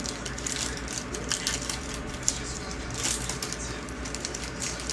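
Foil wrapper of a baseball card pack crinkling and rustling as it is torn open and the cards are pulled out, a run of crisp crackles.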